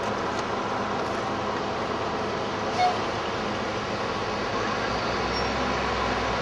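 Steady rushing of the Niagara River rapids, a constant even roar of white water. About three seconds in a brief high chirp cuts through, and a low rumble comes in toward the end.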